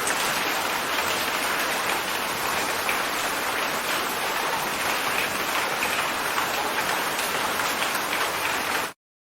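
Heavy rain falling steadily, a dense even hiss of many drops. It cuts off abruptly near the end.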